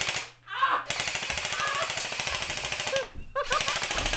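Airsoft guns firing in rapid full-auto bursts, a fast, even clatter of shots. There is a brief break about three seconds in, then firing resumes.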